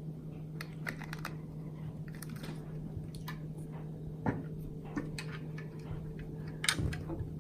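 Small plastic clicks and taps of Lego pieces being handled, with a sharper click about four seconds in and a few more near the end, over a steady low hum.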